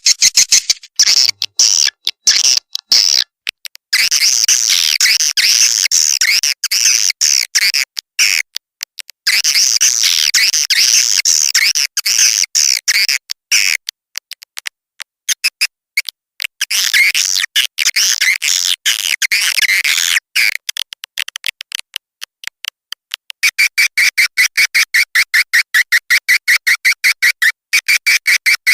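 Recorded swiftlet calls: dense chirping and twittering, broken up by brief gaps. From about two-thirds of the way in, this changes to a fast, even train of chirps at about seven a second. It is a swiftlet lure call of the kind farmers play to draw the birds to a nesting house.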